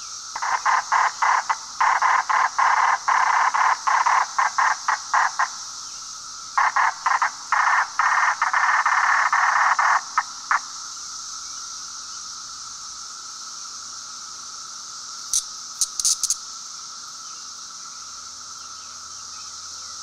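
Periodical cicada held in the fingers, buzzing in loud bursts: a quick run of short pulses, then longer, more continuous stretches that stop about halfway through. This is the protest squawk a handled male cicada gives. A steady, fainter drone at a similar pitch continues underneath, with a few brief high clicks near the end.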